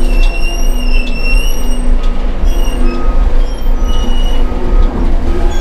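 Caterpillar 6030 mining shovel heard from inside its cab: the twin diesel engines run with a deep, steady rumble while high squealing tones come and go every second or so. The automatic throttle is on, holding the engines at raised revs.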